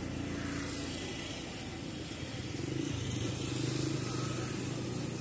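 Steady outdoor background noise with a low engine hum that grows louder in the middle and then eases off.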